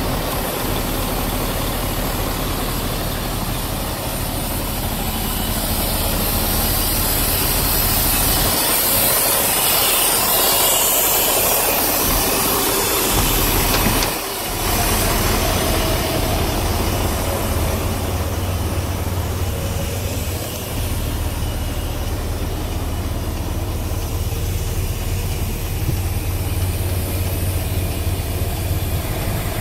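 Mercedes-Benz Actros 3358's 580 hp V8 diesel idling steadily at low revs.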